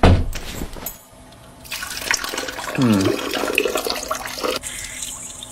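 A knock as a toilet seat is lifted, then a steady stream of urine splashing into the water of a toilet bowl. About three seconds in, a short sound falls in pitch.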